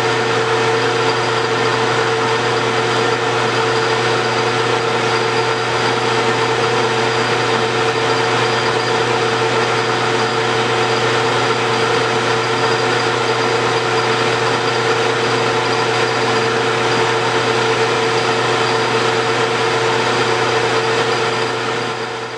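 Metal lathe running steadily with its motor and gear drive giving a constant hum and whine, while a carbide tool turns down brass bar stock to size for a bushing.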